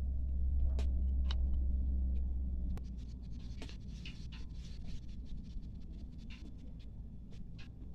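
Knife cutting tomatoes, irregular sharp taps and slicing clicks that come more often after about three seconds. Under them a low rumble, the loudest sound, cuts off about three seconds in.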